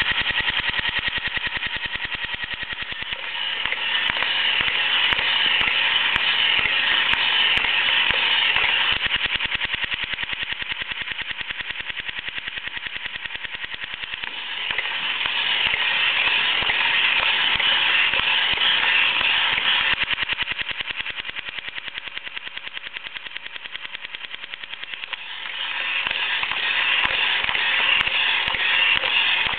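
A small engine running with a rapid, rattling beat, swelling louder and fading softer in long waves of several seconds.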